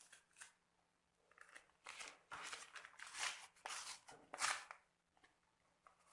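Faint kitchen handling sounds: several short scrapes and rustles in a row while cake batter ingredients are being prepared.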